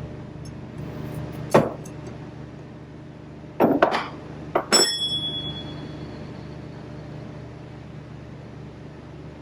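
Metal-on-metal hammer strikes knocking a bearing race out of a baler wheel hub: a single blow about a second and a half in, then a quick cluster of blows around four to five seconds, the last one left ringing. A steady low hum runs underneath.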